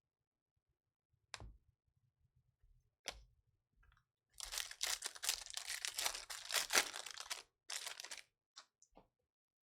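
Foil wrapper of a trading-card pack being torn open and crinkled for about four seconds, the loudest sound here. It comes after two short knocks near the start, and a few light ticks follow.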